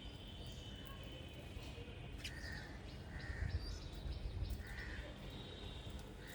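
Birds calling outdoors: four short, harsh calls spread through the second half, over a faint steady background of high bird chatter and low rumble.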